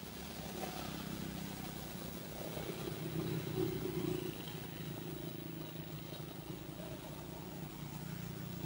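A motor vehicle engine running steadily, its hum swelling about three to four seconds in.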